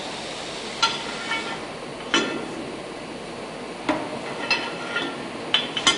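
Sharp metallic clinks of a steel spanner on the nuts of a marine diesel engine's chain tightener bolt, about seven irregular strikes, each with a short ring, over a steady hiss.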